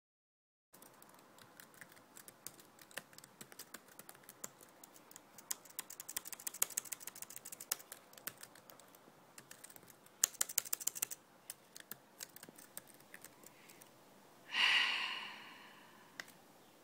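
Typing on a computer keyboard: quick runs of key clicks, starting under a second in, with faster flurries midway. Near the end comes one louder breathy rush of about a second that fades away.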